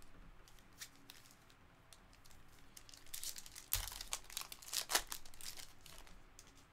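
Foil wrapper of a trading-card pack crinkling as it is handled and torn open by hand, irregular and crackly, loudest in a flurry of crinkles a little past the middle.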